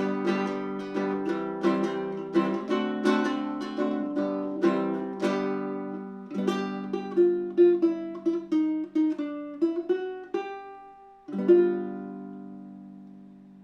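Baritone ukulele, tuned D-G-B-E, played solo. It is strummed in chords for about the first six seconds, then picked note by note, and ends on a chord that rings out and fades.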